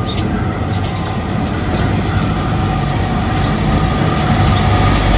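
A light box truck's engine running as it drives slowly up toward and past, the low rumble growing louder near the end.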